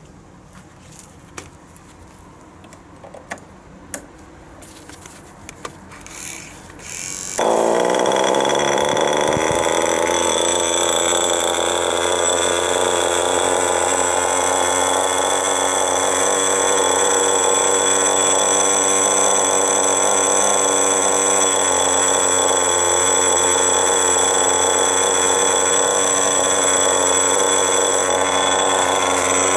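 Veco .21 two-stroke glow engine of an RC nitro buggy catching about seven seconds in, its pitch rising briefly, then running steadily with a high-pitched whine. Before it starts there are a few sharp clicks and knocks from handling.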